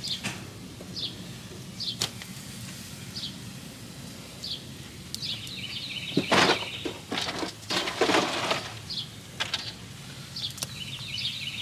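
Small birds chirping and twittering again and again. Twice in the middle come louder bursts of rustling handling noise as meat is settled among the maguey leaves lining the pit.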